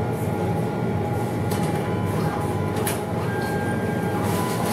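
Steady low rumbling hum of machinery in a public space, with a faint steady whine over it. Twice a short crisp tick sounds as banknotes are flicked through in the hand.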